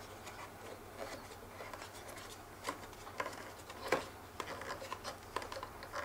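Quiet scratching and small clicks of hands working a plastic drone controller's phone holder under its fabric sunshade, turning the thumb knob on the back to tighten it. Two sharper clicks come about three and four seconds in.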